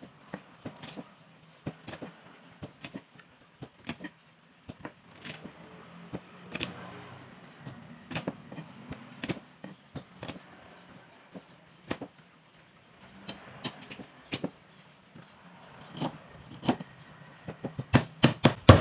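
A steel cleaver, its flat side struck and pressed down on shallots and garlic cloves on a thick wooden chopping board, crushing them: irregular sharp knocks, with a quick run of louder blows near the end. The pounding is noisy.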